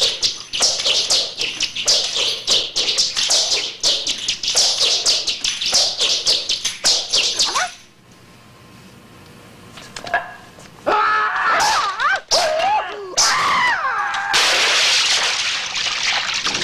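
Film fight foley: nunchaku whirling in rapid whooshing swishes, several a second, for about eight seconds. After a short lull, a man's high, wavering battle cries rise and fall in pitch. A loud rushing noise sets in near the end.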